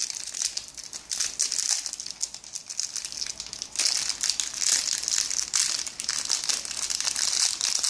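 Plastic candy wrapping crinkling and crackling as it is handled, continuously, a little louder from about halfway through.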